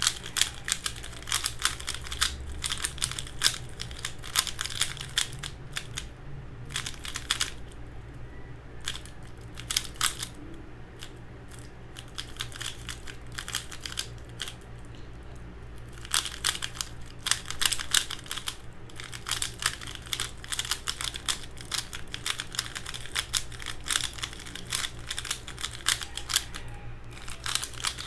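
Valk 3 3x3 speedcube being turned fast: rapid plastic clicking of its layers in flurries, with a quieter stretch in the middle. The cube is freshly lubed.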